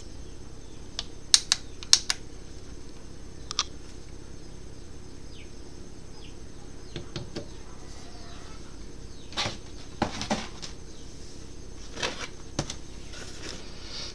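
A few sharp clicks in the first four seconds, then scattered knocks and rustles as small objects are handled on a plastic-covered desk, over a steady faint hum.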